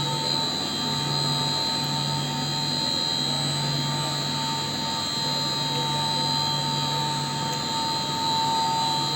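Chiller plant-room machinery running steadily: a continuous mechanical roar with a high, steady whine and a low hum that comes and goes.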